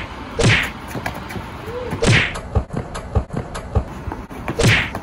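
Pillows swung hard and thudding against bodies in a pillow fight: three heavy whumping hits, about half a second in, about two seconds in and near the end, with smaller knocks between.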